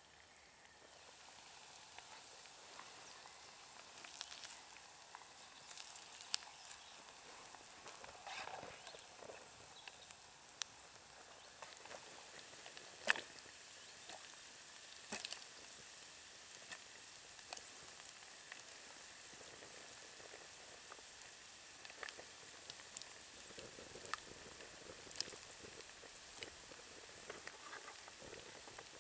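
Potato sticks deep-frying in hot oil in a small pot: a steady sizzle that comes up about a second in, with many sharp crackles and pops, the loudest about halfway.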